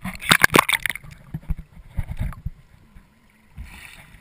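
Water splashing against a camera as it goes under the lake surface, a quick run of sharp splashes, then muffled underwater gurgling with a few dull thumps.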